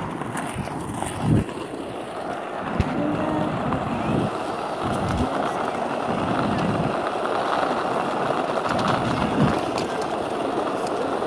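Skateboard wheels rolling steadily on an asphalt path, a continuous rumbling hiss with a few low thumps.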